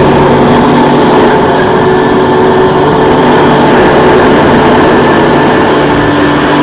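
Hoover U4008 upright vacuum cleaner running steadily on a plush rug: a loud motor and fan hum with a whine, its tone shifting slightly now and then.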